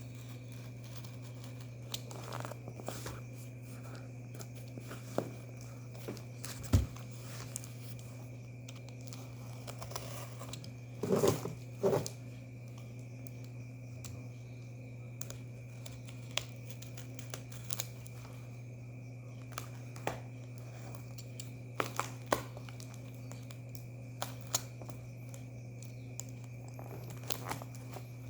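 Packaging being handled during an unboxing: crinkling and tearing with scattered clicks and knocks. The busiest rustling comes about eleven seconds in, over a steady low electrical hum.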